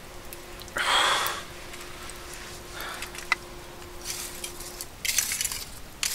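A short, loud breathy puff about a second in. Later come a single click and rough crackling and scraping as tongs shift burning charcoal under a wire grill basket.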